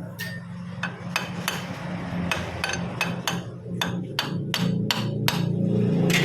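Hammer blows on metal: about a dozen sharp strikes at roughly three a second, over a low steady hum.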